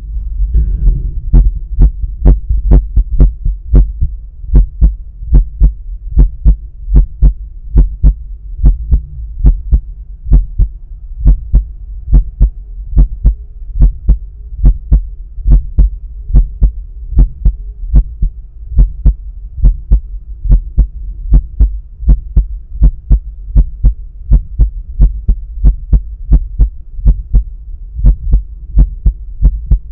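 A man's heartbeat heard through a stethoscope placed at the pulmonic area of the chest: a steady, regular lub-dub rhythm over a low hum, with a brief rush of noise about a second in.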